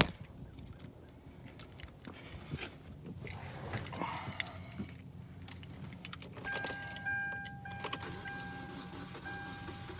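Keys jangling and light clicks inside a car. Then, about six and a half seconds in, the car's warning chime starts, a steady two-tone beep repeating about once a second, as the key sits in the ignition.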